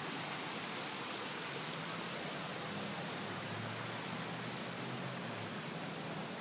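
Floodwater rushing steadily, a constant even noise.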